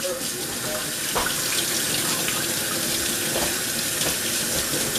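Kitchen faucet running into a stainless steel sink, the stream splashing over a lemon cucumber and hands as it is scrubbed clean. The rush of water is steady, with a couple of faint knocks.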